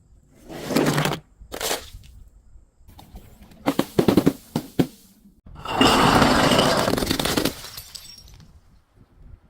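Glass bottles breaking. There are two short crunches in the first two seconds, a quick run of sharp cracks around four seconds in, and then a longer, loud shattering crunch that dies away near the end.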